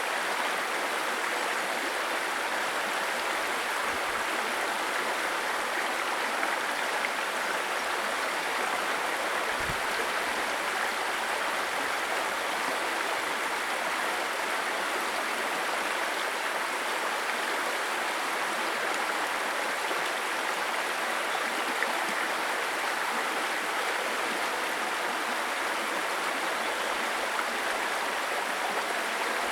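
A babbling brook: shallow stream water splashing and gurgling over stones in a steady, unchanging rush.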